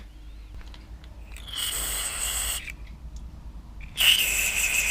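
Drill running in two short bursts of about a second each, boring out a stripped bolt hole in the Mazda KLV6 V6's aluminium engine block, with a high whine as the bit cuts.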